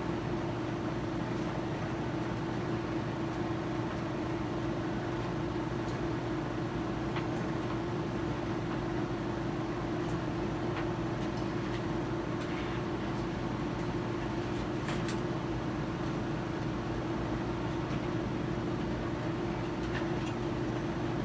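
A steady mechanical hum with a constant low tone, with a few faint clicks now and then.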